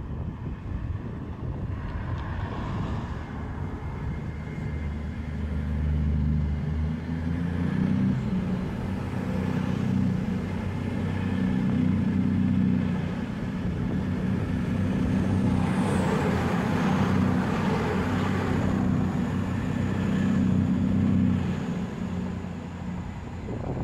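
Passenger train passing beneath a footbridge. A steady low drone that builds as it approaches, with a rush of wheel noise for a few seconds as the carriages go underneath, then fades away near the end.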